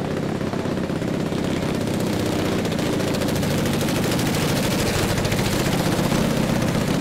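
Antique motorcycle's unmuffled engine running as it rides by, its open exhaust a loud, rapid popping that slowly grows louder as it passes close.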